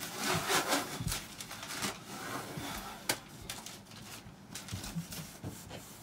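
Paper rustling and crinkling as a sheet is handled, loudest in the first second and again briefly a little after two seconds, with scattered light knocks and scrapes of vinyl floor planks being handled and laid. A single sharp knock comes about three seconds in.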